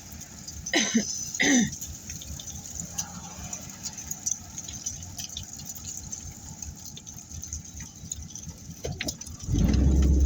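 Car cabin noise with small rattles and ticks over a low rumble, two short falling squeals about a second in, and a louder low rumble near the end as the car or the wind picks up.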